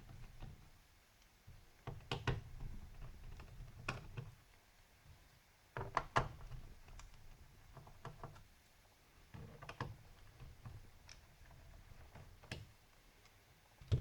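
Scattered small clicks and knocks of a screwdriver and loose screws against the plastic underside of an Asus F3S laptop as the access-panel screws are taken out, coming in short clusters a couple of seconds apart.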